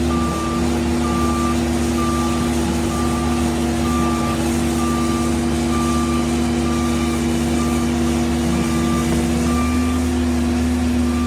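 Cat 308 excavator running steadily while its travel alarm beeps about twice a second, the alarm it sounds when the machine tracks.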